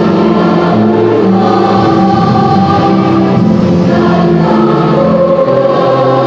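School choir singing in several parts, holding long chords that change about once a second.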